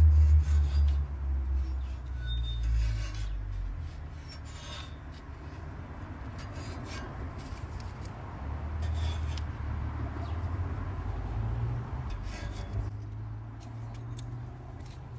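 Strip of paper being sliced between the reel blades and bedknife of a Swardman Edwin 2.0 reel mower as the reel is turned by hand: a series of short, irregular rasping snips. This is a paper test of the reel-to-bedknife adjustment. A low rumble in the background is strongest at the start and fades.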